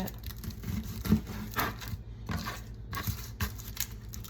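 Kitchen knife cutting a red onion on a cutting board: a string of irregular taps and knocks of the blade against the board.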